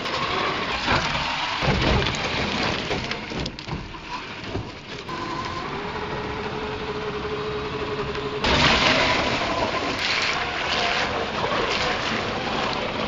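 A 1/10-scale Traxxas TRX-4 RC truck's electric motor and drivetrain whining as its tyres churn through sand and gravel. About eight seconds in, loud water splashing begins as it drives through a shallow creek.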